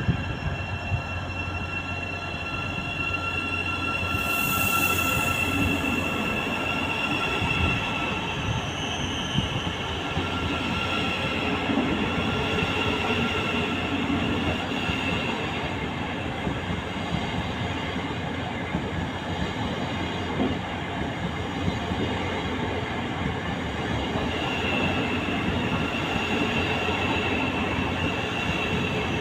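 Thameslink Class 700 electric multiple unit pulling into the platform and rolling slowly alongside, its running noise carrying a thin, steady high whine. A brief hiss comes about four seconds in.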